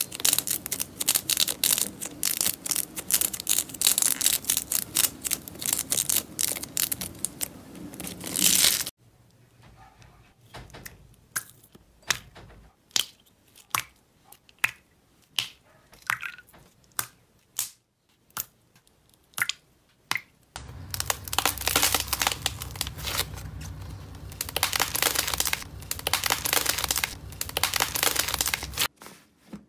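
Hands squeezing and pressing slime: a dense run of crackling, crunching clicks, then from about nine seconds in a quieter stretch of sparse single squishes and clicks, then dense crackling again from about twenty seconds in as a red crunchy slime is squeezed.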